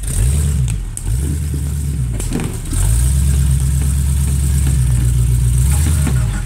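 Off-road buggy's engine revving in two short bursts, then held at high revs for several seconds under load on a steep climb.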